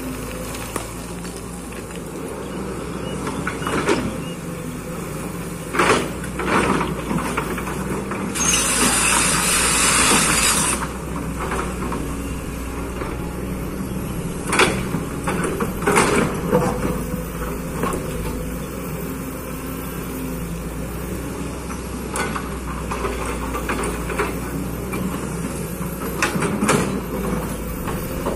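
Kobelco excavator's diesel engine running steadily under work, with sharp metallic clanks several times. A loud hiss lasts about two seconds, starting some eight seconds in.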